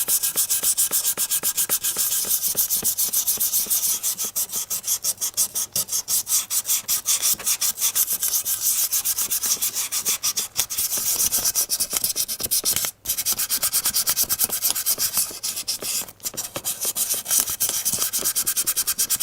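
Rapid back-and-forth rubbing strokes of abrasive on a surface, like hand sanding, several strokes a second, with two brief pauses near the end.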